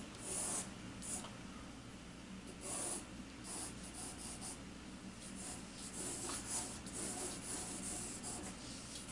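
Graphite pencil sketching on drawing paper: many short, scratchy strokes in quick, irregular succession.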